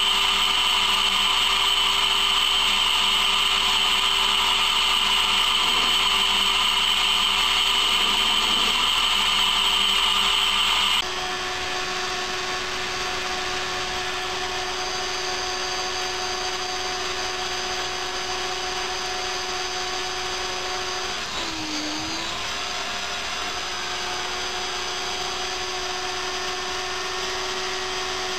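Emco Unimat SL mini lathe, converted to CNC, running with a steady whine as it turns a metal part. About eleven seconds in the sound cuts abruptly to a quieter, different steady whine from a small grinding spindle working the part, with a brief dip in pitch about two-thirds of the way through.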